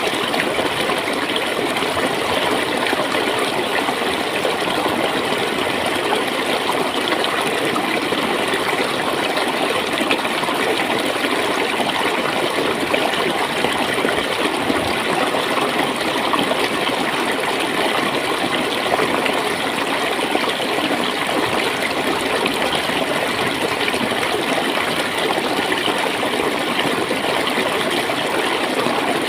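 Water flowing and gurgling in a steady rush, even and unbroken.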